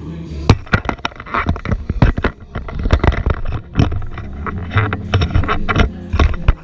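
Handling noise from the camera: irregular loud knocks, clicks and rubbing as hands and clothing bump and brush right against its body and microphone.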